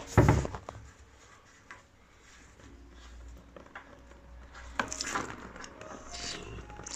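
A sharp knock, then small clicks and clatter of tools and fittings being handled, with a louder burst of clatter about five seconds in.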